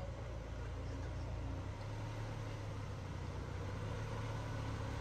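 Tank 300 SUV engine running at low revs as the vehicle creeps on a steep mud slope: a steady low hum, its note shifting slightly about a second and a half in.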